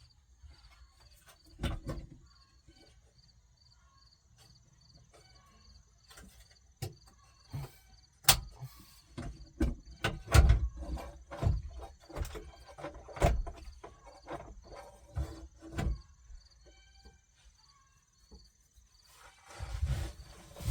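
Irregular clicks, knocks and clunks of a car radio being handled and worked into a pickup truck's dash, busiest about halfway through. A faint insect chirps steadily about twice a second behind it.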